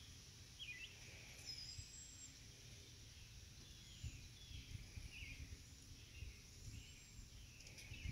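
Faint bird chirps: short, high, sliding notes repeated every second or so, over a low rumble.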